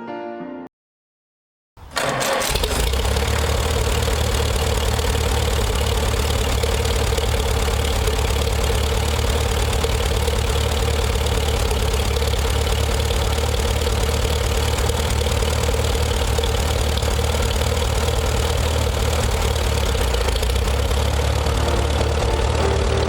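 An engine comes in abruptly about two seconds in and runs steadily at idle, with a strong low rumble.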